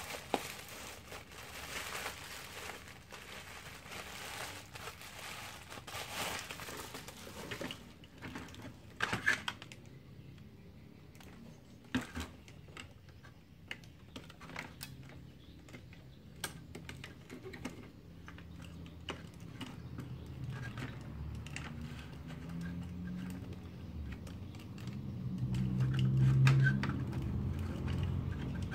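Thin plastic bag crinkling and rustling as a toy robot is pulled out of it, followed by scattered clicks and taps of the hard plastic figure being handled and its arms moved. A low hum swells in the last few seconds and is the loudest sound near the end.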